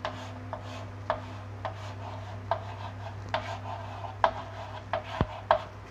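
Chalk writing on a green chalkboard: a string of short taps and scratches, about one every half second, as the letters of a word are written. A steady low hum runs underneath.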